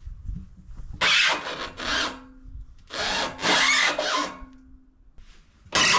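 Wood scraping and rubbing in separate bursts of about a second each, four in all, as a log is pushed and rolled across the sawmill bed to flip it.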